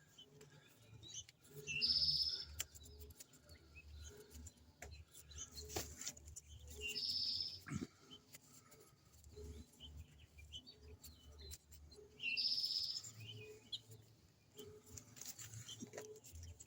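A songbird repeating the same short, high call about every five seconds, with faint clicks of small parts or tools being handled between calls.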